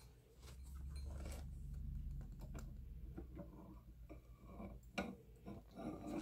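Faint handling of a picture book as it is lifted, held up and swung down: low rustling with light ticks, then a couple of sharper taps near the end.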